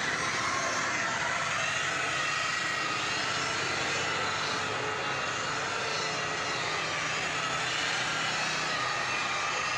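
Electric rotary polisher running steadily as it buffs a car's paintwork, a steady motor whine with a few held tones that waver slightly in pitch.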